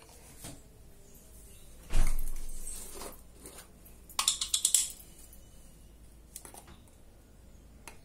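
Stainless-steel kitchenware clanging: a sharp clang about two seconds in that rings and fades, then a quick run of metallic clinks about four seconds in.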